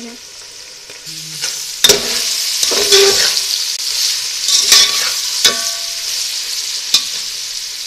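Diced chicken, potatoes and carrots sizzling as they fry in a metal pot, stirred with a metal spatula that scrapes and clinks against the pot. The sizzle swells about two seconds in as the stirring gets going, with several sharp clinks of metal on metal.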